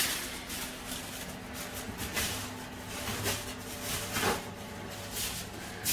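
Oven door opened and a foil-covered baking tray pushed onto the metal oven rack: a few light clunks and scrapes spread out over several seconds, over a faint steady hum.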